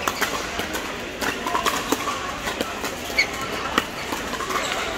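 Pickleball paddles hitting the hard plastic ball during a rally: a string of sharp pops at irregular spacing, several of them loud, with more distant hits from neighbouring courts.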